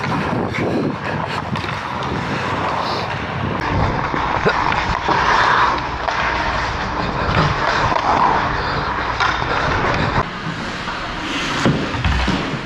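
Ice hockey skate blades scraping and carving on the ice, with a few sharp clacks of sticks and puck.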